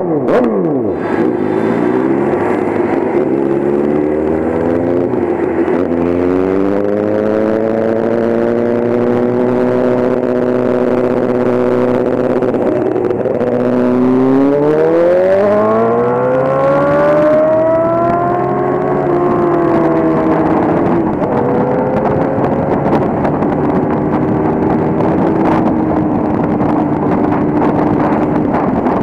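Motorcycle engine running while riding: its pitch drops right at the start, climbs again about five seconds in, holds steady, then rises sharply on hard acceleration around the middle before easing off and settling, all over road and wind noise.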